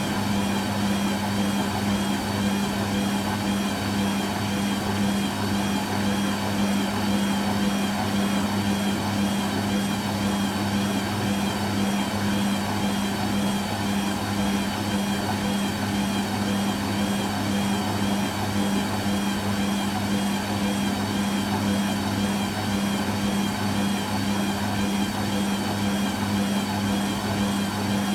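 Hoover Quattro System Power Jet Easylogic AE130 washing machine running with a steady, even motor hum.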